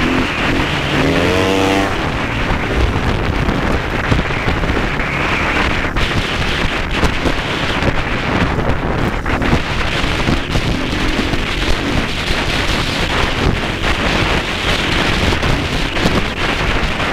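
KTM 500 single-cylinder four-stroke dirt bike engine revving up in the first couple of seconds, then running under changing throttle, with many short knocks and rattles from riding over bumpy ground.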